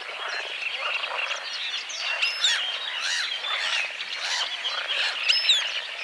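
A dense chorus of frogs croaking in a spring wetland, with scattered high bird chirps and short descending whistles over it.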